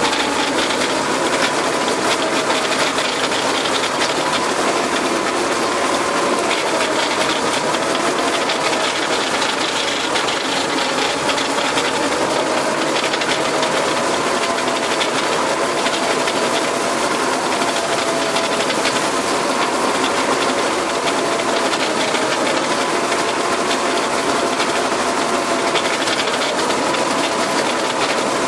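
Tractor engine running under load, driving a PTO rotary tiller that churns grass into the soil: a steady mechanical din with a faint, slightly wavering whine.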